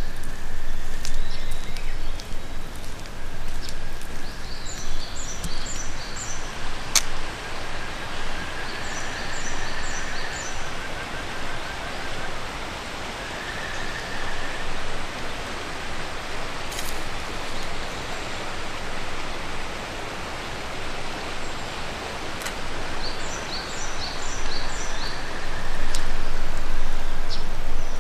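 Steady rushing outdoor noise, with a small bird repeating short runs of high chirps several times and a few sharp clicks.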